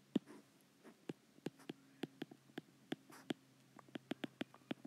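Stylus tapping on a tablet screen while handwriting: a string of light, irregular clicks, several a second.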